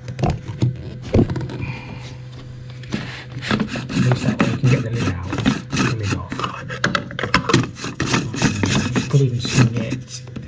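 Adey MagnaClean Micro2 plastic magnetic filter being handled and offered up to copper pipework: a few knocks in the first second or so, then a busy run of clicks, scraping and rubbing from about three seconds in.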